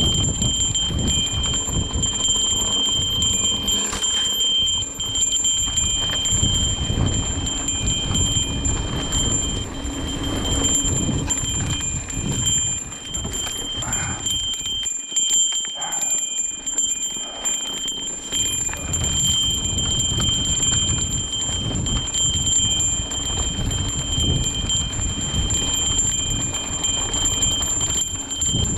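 Handlebar trail bell on a mountain bike ringing continuously as it is shaken over the rough trail, with the rumble of tyres on dirt and wind on the microphone underneath. The rumble eases briefly in the middle.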